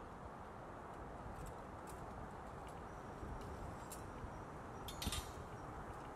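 Faint, steady wind noise in a woodland, with a few light clicks and a brief rustle about five seconds in.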